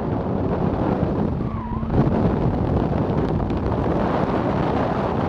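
Mazda RX-8 accelerating hard on an autocross course, heard from a camera mounted at the car: engine, tyre and wind rumble, briefly easing about one and a half seconds in before picking up again.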